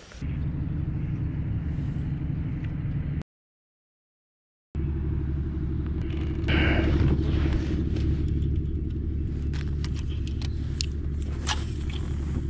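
A steady low rumble, broken by about a second and a half of dead silence, with a rustle and a few light clicks from handling a spinning rod and reel.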